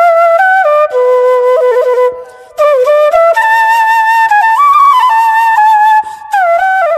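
Background music: a solo flute melody moving in steps from note to note, with a short break a little over two seconds in and a brief dip at about six seconds.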